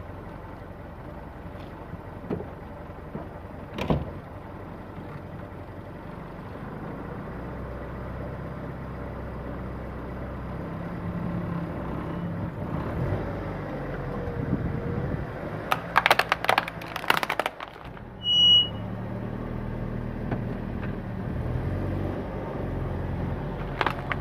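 A car's engine running at low speed as the car creeps forward, its hum growing louder from about a third of the way in. About two-thirds through, a burst of sharp cracks as the tyre rolls onto a plastic toy car and crushes it, followed by a short high beep.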